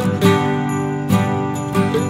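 Background music on a plucked string instrument, with a melody of changing notes.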